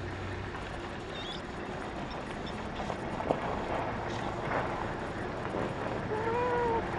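A vehicle engine idling with a low steady hum under open-air noise. Near the end a short call rises and falls in pitch.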